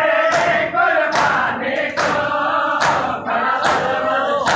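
A crowd of men chanting a noha together while beating their chests in unison, a sharp slap roughly every 0.8 seconds keeping time under the singing.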